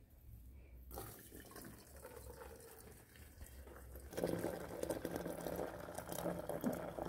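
Steaming hot water poured in a stream from a soot-blackened kettle into a brass teapot, splashing into the pot. It becomes clearly louder about four seconds in.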